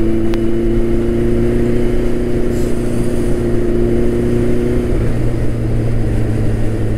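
Turbocharged Suzuki Hayabusa's inline-four engine running steadily at freeway cruising speed, heard as a constant drone through a helmet-mounted microphone, with wind noise over it. A higher tone within the drone fades out about five seconds in.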